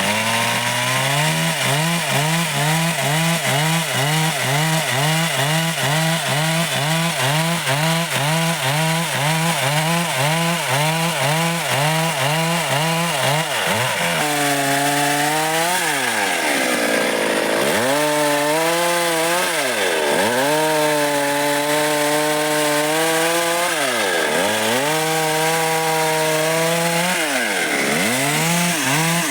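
A Stihl MS 382 two-stroke chainsaw running at high revs and cutting dry wood. For the first half its pitch wavers up and down about twice a second; after that it drops deeply and climbs back several times as the chain bogs down in the cut and recovers.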